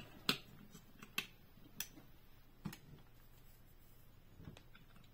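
Light clicks and taps of small die-cast toy vehicles being handled and set down on a tabletop: about four sharp clicks in the first three seconds, then a faint one near the end.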